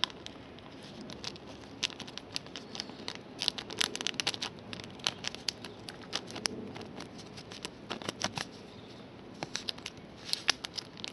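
Trading cards and their packaging being handled: scattered light clicks, snaps and rustles of card stock.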